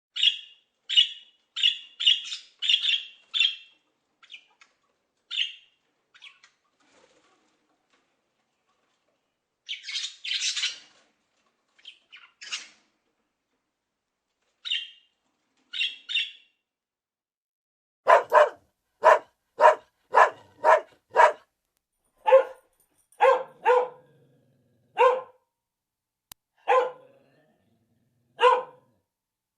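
Animal calls: a quick run of short, high-pitched chirps followed by scattered single chirps, then about halfway through a series of barks, six in a fast run and then single barks spaced about a second apart.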